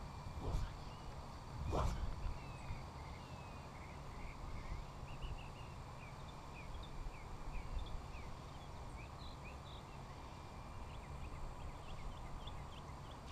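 Many small birds chirping and twittering in short, scattered notes from about two seconds in, over a steady low wind rumble on the microphone. Two soft thumps come in the first two seconds.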